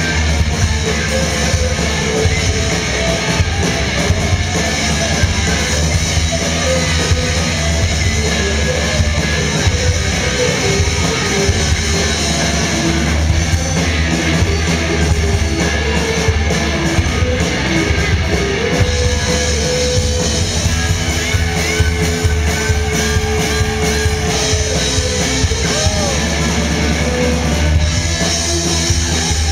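Live rock band playing: electric guitar through an amp and a full drum kit, continuous and loud, with one long held note about two-thirds of the way through.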